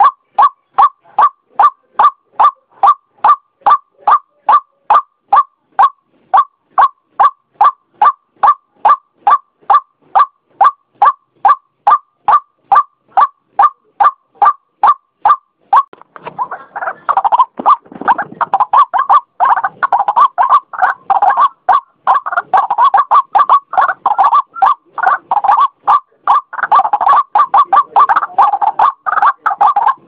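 White-breasted waterhen calling. Short, evenly repeated notes come about three times a second for the first half. About halfway through they give way to a denser, jumbled run of overlapping calls.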